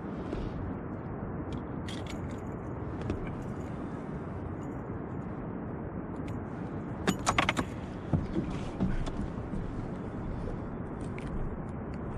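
Steady rumble of surf breaking on a river-mouth bar, with a short clatter of sharp clicks and rattles about seven seconds in and a few lighter clicks after it.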